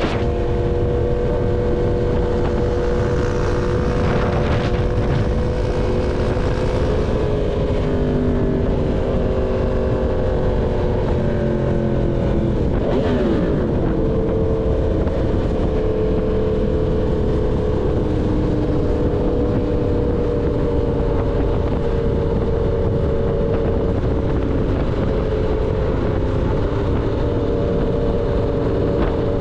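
Yamaha MT-10's inline-four engine through an SC Project full-system exhaust, running at a steady engine speed with wind rush underneath; the engine pitch shifts briefly about eight and thirteen seconds in.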